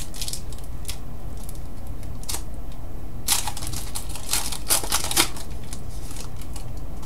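Trading cards being handled and flipped through by hand: a string of short scraping flicks as card slides over card, busiest in the middle, over a steady low hum.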